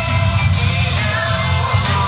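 Loud dance music for an umbrella dance, a wavering melody line over a heavy, steady bass.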